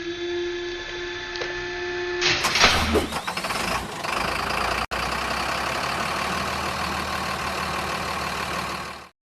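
Added sound effect of a heavy truck engine. A steady humming tone runs for about two seconds, then the engine starts with a loud burst about two and a half seconds in. It keeps running steadily and cuts off abruptly shortly before the end.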